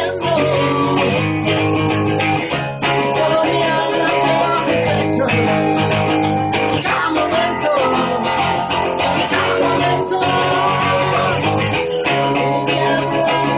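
Guitar-driven music with bass guitar, loud and continuous, the bass notes changing every second or two under a gliding guitar line.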